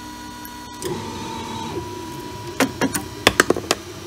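Delta belt 3D printer running, its stepper motors whining briefly as the conveyor belt and delta arms move. About two and a half seconds in comes a quick run of about seven light clicks and clatter.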